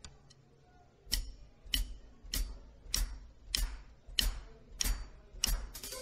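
Drum kit starting a slow, even beat about a second in: cymbal strikes that ring briefly, with the bass drum under each, a little under two a second.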